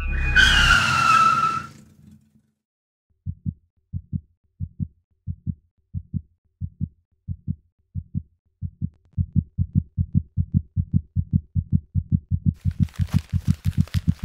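A shrill sound falling in pitch and dying away over the first two seconds. After a short silence comes a heartbeat sound effect, low double thumps that start slowly and speed up steadily. Near the end a hiss joins in.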